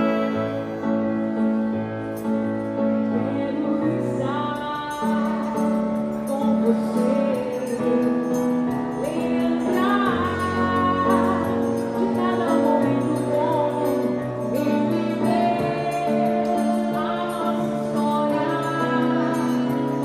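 Live band music in a xote/baião arrangement: keyboard with held bass notes under sustained melody from the band's instruments, and a woman singing the tune.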